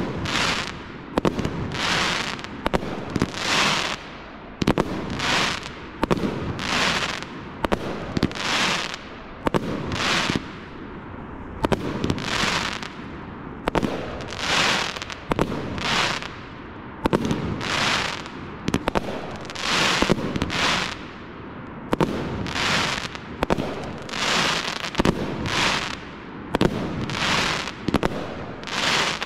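Pyroworx Creed 36-shot, 30mm firework cake firing shot after shot, roughly one a second. Each shot is a sharp bang with a short crackling tail as the star burst opens.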